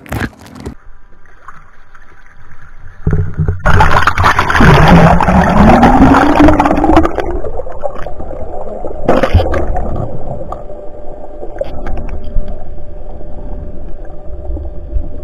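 Water rushing and bubbling around an underwater camera as a freediving spearfisher goes under: quieter at first, then a loud rush about three and a half seconds in with a tone rising in pitch through it, settling into a steady low underwater rumble.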